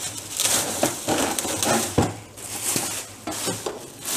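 Clear plastic wrapping crinkling and rustling in irregular bursts as it is pulled back off a monitor in its box, with one sharp knock about halfway through.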